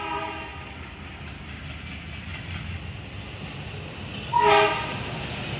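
Battery-powered Thomas the Tank Engine toy locomotive running, its motor and wheels making a steady low rumble. It sounds a short electronic train whistle right at the start and a louder one about four and a half seconds in.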